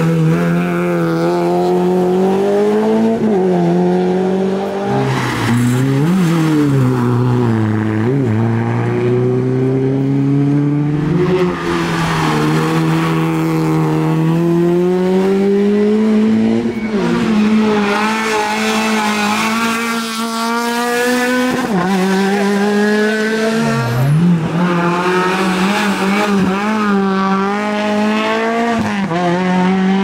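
Small hatchback rally cars, a Renault Clio first, revving hard through a tight bend one after another. The engine pitch drops repeatedly on braking and downshifts and climbs again as each car accelerates away.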